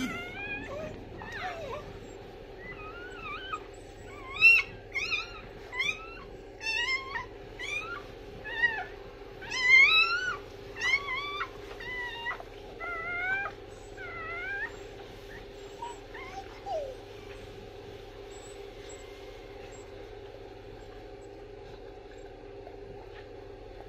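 Newborn puppies squeaking and whimpering in a rapid run of short, high, wavering cries that die away about seventeen seconds in. A steady low hum sits underneath.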